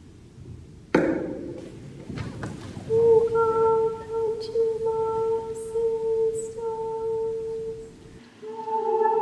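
A sharp strike about a second in that rings away. Then a high voice sings one long held note with a slight waver, breaking off briefly near the end and returning fuller, as if more voices join.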